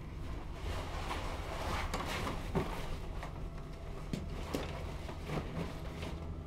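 Rustling and a run of light knocks and clinks as items are handled at pantry shelves and packed into a backpack, over a low steady drone.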